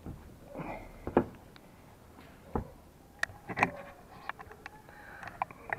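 Irregular knocks, clicks and scuffs of someone clambering over clay roof tiles, mixed with handling of the camera. The sharpest knock comes about a second in, and there is a cluster of clicks around the middle.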